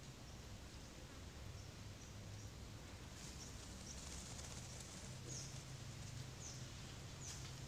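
Faint outdoor ambience: a low steady hum, with a few short, high chirps from about three seconds in.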